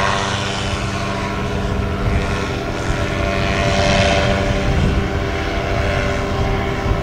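Paramotor engine and propeller running at high climb-out power as the powered paraglider gains height after take-off, steady with slight rises and falls in pitch. Wind buffets the microphone underneath.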